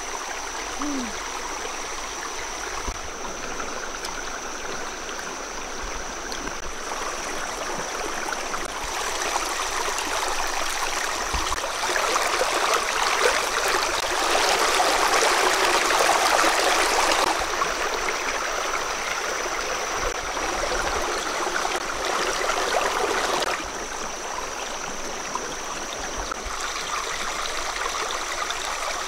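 Shallow rocky stream running and gurgling over stones, growing louder for several seconds in the middle and changing character abruptly twice. A thin steady high tone sits under the water.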